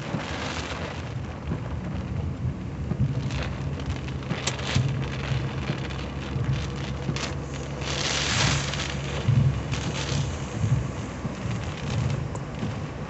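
Heavy rain beating on a moving car, heard from inside the cabin over the steady low rumble of the engine and tyres on a wet road, swelling louder a few times.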